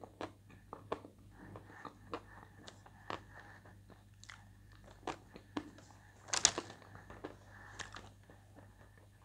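Close-up crunching and chewing of edible white chalk: scattered short, crisp crunches with quieter chewing between, and the loudest burst of crunching about six and a half seconds in.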